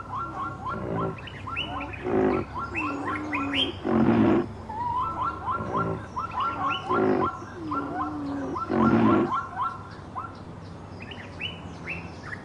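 Loud, short calls from a large wild animal, repeating every two to three seconds, over a steady chorus of chirping birds.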